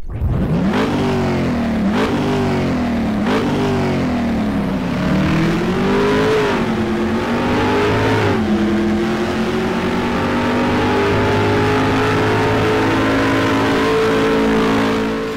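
Car engine accelerating hard through the gears: the pitch climbs and drops back at three quick shifts, then climbs twice more over longer pulls, then holds a steady high pitch at speed before fading near the end.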